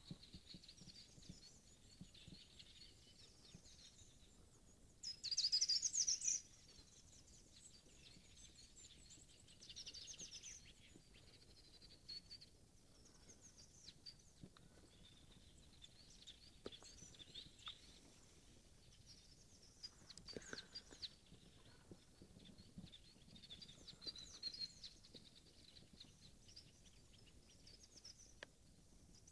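Faint morning chorus of small forest songbirds, with scattered chirps and trills. A louder, harsher burst comes about five seconds in and lasts just over a second.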